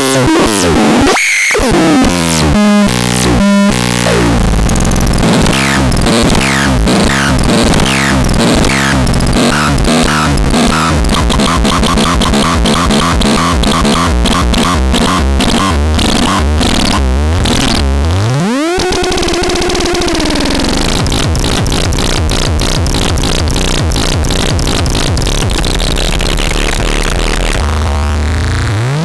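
Harsh, noisy electronic synthesizer sounds: dense, rapidly stuttering glitchy textures, with a steep rising pitch sweep about two-thirds through and another rising sweep near the end.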